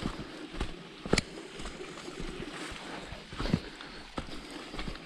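A hiker's footsteps on a trail: irregular thuds and knocks every half second or so, the sharpest just after a second in, over a steady rustling hiss.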